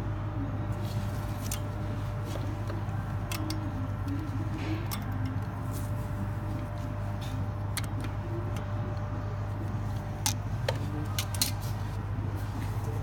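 Scattered light metallic clicks and clinks of hand tools working on a forklift drum brake's shoes and springs, over a steady low hum.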